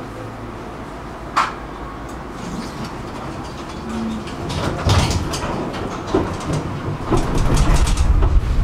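Tram running on its rails: a sharp click about a second and a half in, then from about halfway a run of wheel clicks and clacks over rail joints and points, with the running rumble growing louder near the end.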